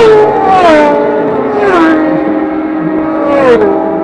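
Superbike racing motorcycles passing close at full throttle on the straight, one after another. Each engine note rushes past and drops in pitch, about four times, over the steady sound of engines further away.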